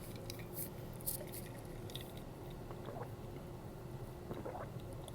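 Quiet, wet chewing and lip-smacking of a mouthful of cheesy pizza fries, with a few scattered small mouth clicks.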